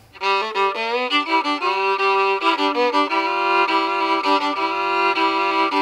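Background music on a fiddle playing a slow melody. It comes in just after the start with a run of changing notes, then settles into long held notes.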